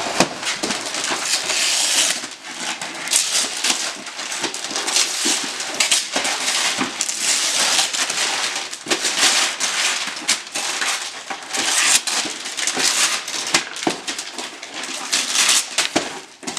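Wrapping paper being ripped and crumpled by hand off presents, in a run of repeated tearing surges with a few sharp crackles.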